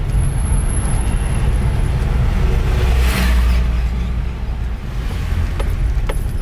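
Car engine and road noise heard from inside the cabin while driving, a steady low rumble. A brief hiss about three seconds in.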